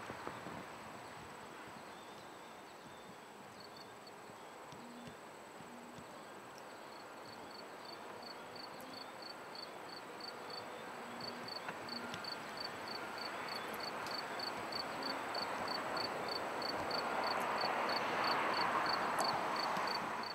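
Insect chirping in a steady high-pitched pulse, about two to three chirps a second, over a broad hiss of outdoor ambience that grows louder toward the end.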